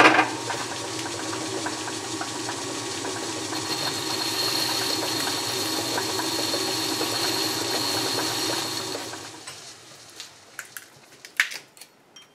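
A flat-belt-driven metal lathe is switched on with a click and runs steadily with a hum and a higher whine, then spins down about nine seconds in. A few light knocks of metal being handled follow.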